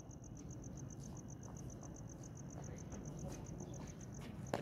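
Crickets chirping steadily at night: a thin, high, evenly pulsed trill of about eight pulses a second, with a single sharp knock near the end.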